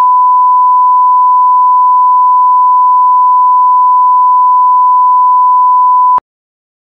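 A loud, steady electronic beep: one pure tone held at a single pitch for about six seconds, which cuts off abruptly with a click.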